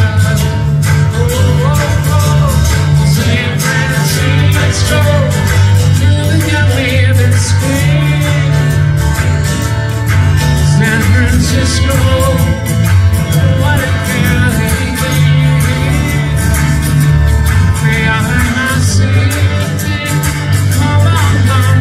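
Live pop song amplified through a PA: a man singing along with his guitar, over a steady beat and heavy bass.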